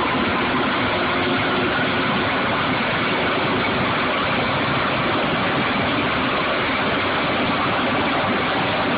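Oil drilling rig machinery running with a steady, unbroken noise while pipe is tripped into the hole.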